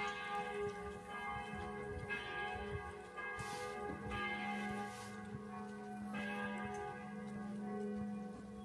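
Church bells ringing, with a fresh strike about every two seconds and the tones ringing on over one another.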